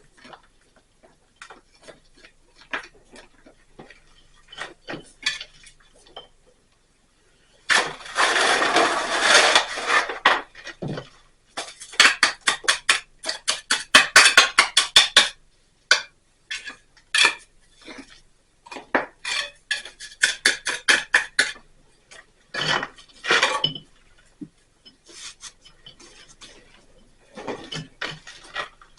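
Irregular metallic clinks, taps and scrapes of hand tools at work, with a longer dense scrape about eight seconds in and quick runs of strikes after it.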